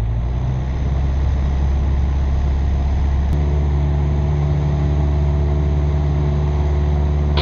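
Cessna 172's piston engine and propeller running, heard from inside the cabin as a steady drone. It grows louder about a second in and changes pitch about three seconds in, as power comes up after lining up on the runway.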